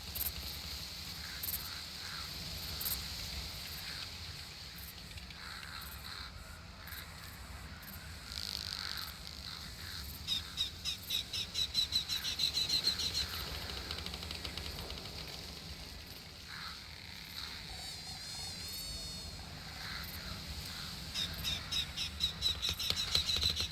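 Summer outdoor ambience: a steady high insect buzz over a low rumble, with two runs of rapid chirps that build in loudness and a brief warbling bird call between them.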